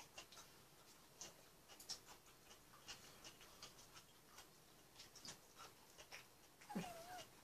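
Near silence in a small room, broken by faint scattered clicks and ticks, with a short murmur of a voice near the end.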